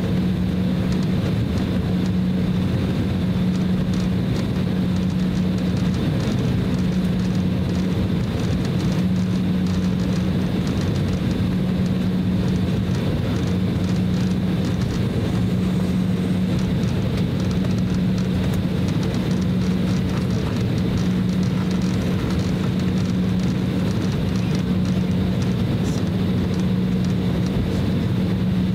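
Cabin noise of an Embraer E190 airliner taxiing: its GE CF34-10E turbofans running at low taxi power as a steady low drone with a faint high whine over a steady rushing noise.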